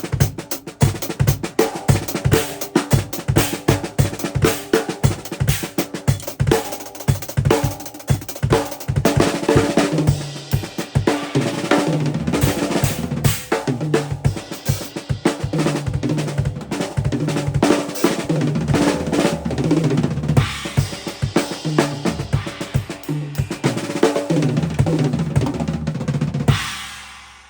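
Acoustic drum kit played freely in quick, busy patterns: bass drum, snare with rimshots and rolls, and cymbals. The playing stops about a second before the end and the ring dies away.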